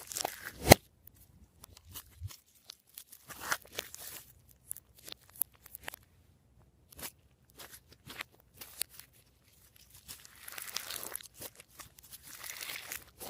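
Glossy slime being handled and mixed by hand: scattered sticky clicks and pops, with one sharp snap just under a second in and a longer run of wet crackling near the end.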